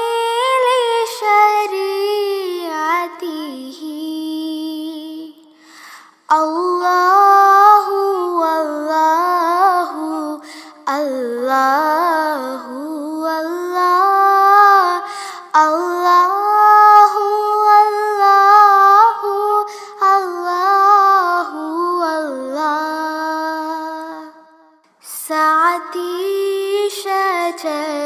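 A high female voice sings a slow melody with long, wavering held notes over soft background music. The voice breaks off briefly about six seconds in and again near twenty-five seconds.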